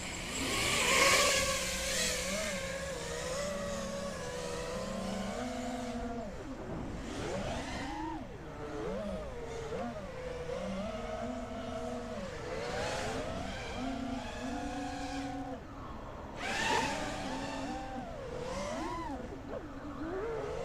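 FPV freestyle quadcopter's four T-Motor 2306 brushless motors whining as it flies nearby, the pitch rising and falling constantly with the throttle. It is loudest about a second in and again past the middle, with sharp throttle punches.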